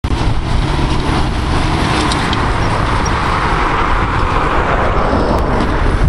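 Fendt 820 tractor's six-cylinder diesel engine running steadily under load as it pulls a reversible plough through the soil.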